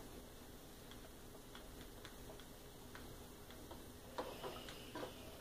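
Faint, scattered light ticks and taps from an iron and fabric being handled while seams are pressed open. A few slightly louder knocks come near the end.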